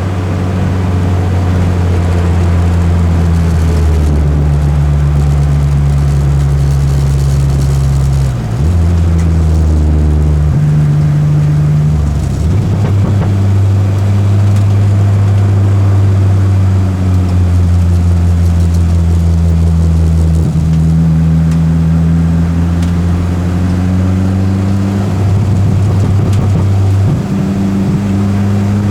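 Peugeot 205 engine running hard at a steady loud level. Its pitch climbs slowly, drops sharply a few times as gears change, then climbs again.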